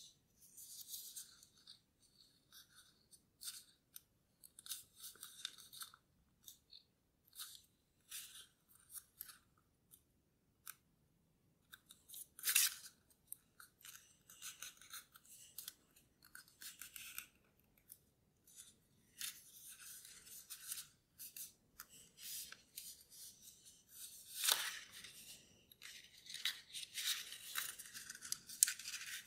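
Origami paper being folded by hand: on-and-off rustling and crinkling as the sheet is handled and creased, with a louder crackle a little before halfway and another about five seconds before the end.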